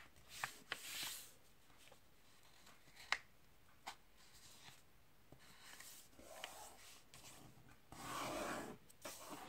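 A sheet of printing paper being folded in half and creased by hand on a tabletop: faint rustling and a few light taps, then a longer, louder rubbing scrape near the end as the fold is pressed down.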